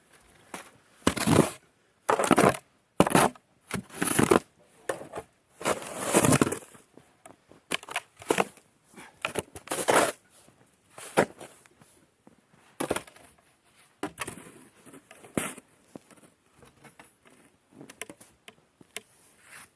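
An irregular series of crunching, scraping noises, heaviest in the first half and thinning to lighter crackles and clicks later.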